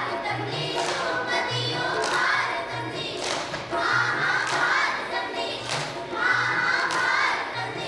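A group of children singing a song together in chorus, in phrases a second or two long, over a rhythmic low beat.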